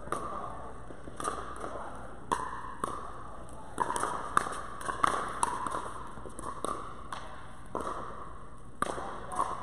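Pickleball rally: paddles popping against the hollow plastic ball, about a dozen sharp, irregular hits, with the echo of a large indoor court hall.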